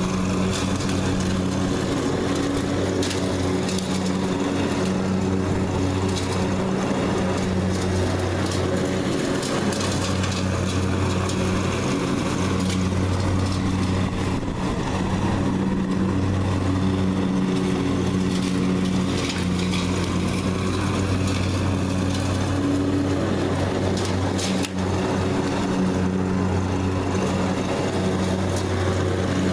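Riding lawn mower engine running steadily under load while mowing grass, a continuous low engine hum that swells and eases a little as the mower passes and turns.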